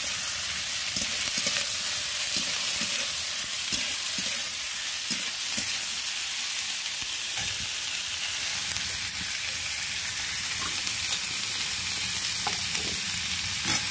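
Sliced onions, green chillies and capsicum sizzling in hot oil in a kadai with a steady hiss, stirred with a metal spatula that scrapes and taps the pan now and then.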